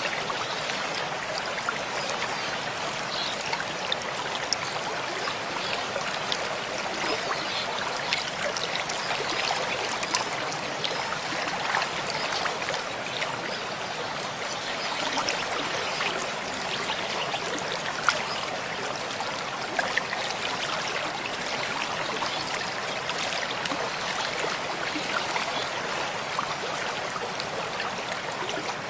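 Running water: a steady babble with many small splashes, holding an even level.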